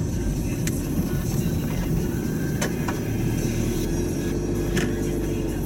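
Steady road and engine noise inside a moving car, a continuous low rumble with a few faint clicks.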